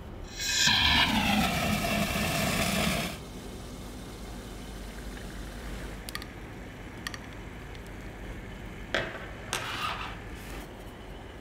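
Liquid nitrogen hissing out of a pressurised dewar's withdrawal tube into a small steel flask for about three seconds, with a whistling tone that falls in pitch, then cut off sharply as the valve is shut. A few light clicks and a short second hiss follow near the end.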